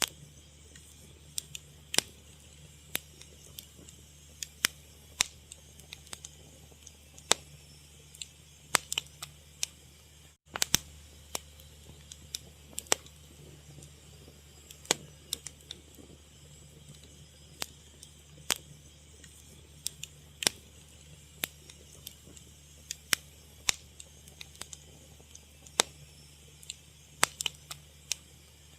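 Fire crackling, with irregular sharp pops, some much louder than others, over a steady low rumble. The sound cuts out for an instant about ten seconds in.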